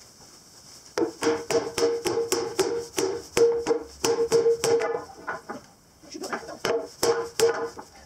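Hammer blows on a steel wheel centre, about four a second, each one ringing like struck metal. There is a run of blows, a short pause, then a few more. The torch-cut centre of a Hardi sprayer wheel is being knocked out of the rim.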